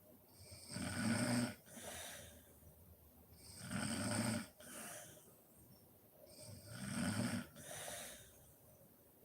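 A sleeping woman snoring, close up: three loud, rattling snores about three seconds apart, each followed by a softer breath out.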